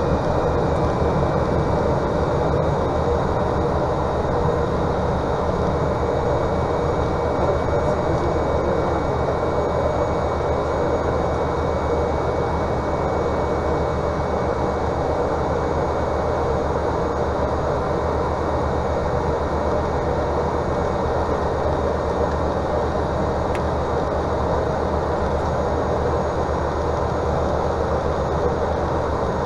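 Cessna 208 Caravan's PT6A turboprop engine and propeller running steadily at low power, heard from outside the cabin, as the aircraft rolls out and taxis after landing.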